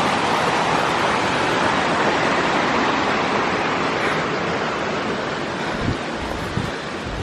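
Steady, loud rushing noise, with a few low bumps near the end.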